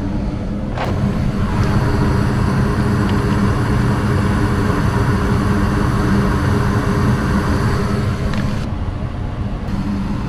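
Gas furnace running: a steady low mechanical hum with a rushing layer on top, with a single click about a second in. The rushing layer drops away near the end while the hum carries on.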